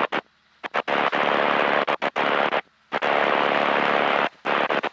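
Light-aircraft engine and wind noise heard through the cockpit intercom, a steady hiss with a low engine hum, cutting out abruptly several times as the intercom's squelch closes and reopens.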